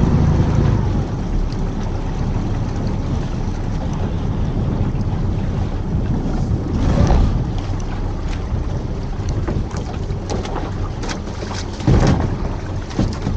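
Wind rumbling on the microphone aboard a small open boat, over a low steady engine hum and water noise, with louder gusts about seven and twelve seconds in.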